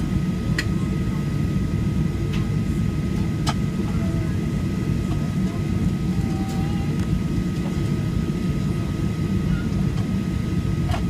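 Airliner cabin noise inside a Boeing 737-800: a steady, deep rumble of its CFM56 jet engines and airflow, with two faint steady whine tones over it and a few light clicks.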